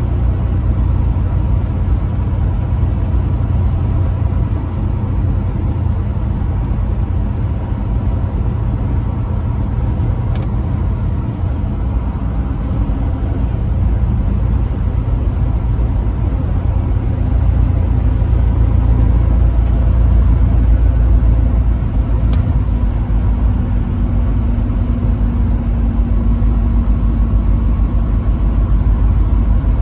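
Truck being driven: a steady low rumble of engine and road noise, with no horn.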